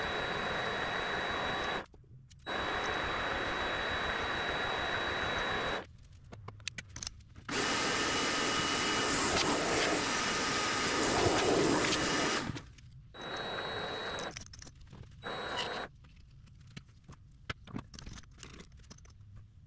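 An electric power tool's motor running in several runs of one to five seconds, starting and stopping each time, with a steady high whine over a noisy hum; light clicks and handling noise fall in the gaps between runs.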